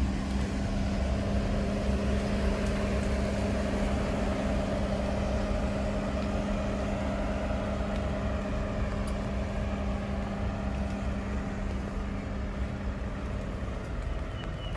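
Road traffic on a wet road, with a steady low mechanical hum that holds an even pitch and stops near the end, over a constant low rumble.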